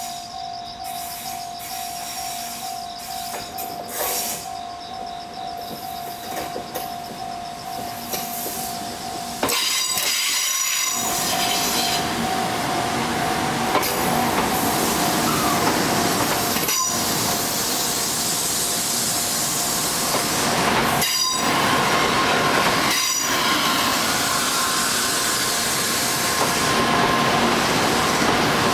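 Level-crossing warning bell ringing steadily; about nine seconds in, the loud rolling noise of an N700A Shinkansen train crossing takes over, its wheels squealing on the rails.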